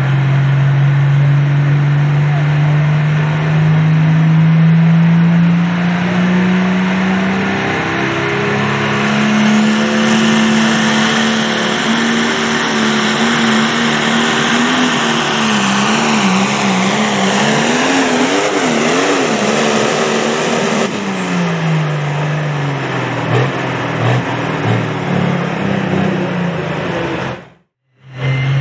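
Turbocharged diesel engine of a John Deere Light Limited Pro Stock pulling tractor running flat out under the load of the sled, with a high whine over it. Its pitch climbs over the first several seconds and then holds. The engine speed wavers up and down, and about 21 seconds in the revs fall away as the pull ends.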